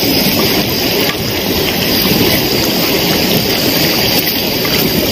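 Steady, loud rushing noise of strong wind buffeting the microphone.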